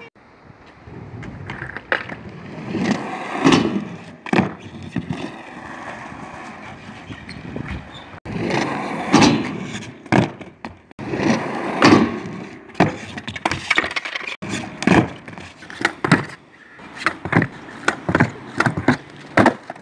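Skateboard wheels rolling on concrete, broken by many sharp clacks of tail pops, board slaps and landings as tricks are tried.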